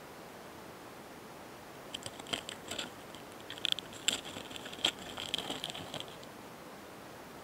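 Mating pair of karakane hanakamikiri longhorn beetles (Gaurotes doris) giving a run of irregular scratchy clicks and short high rasps, close-miked, from about two seconds in until about six seconds in, over a steady faint hiss.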